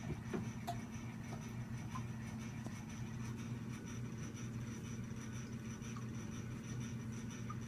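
Steady low electrical hum with a faint, high-pitched whine over it, and a few faint scattered ticks.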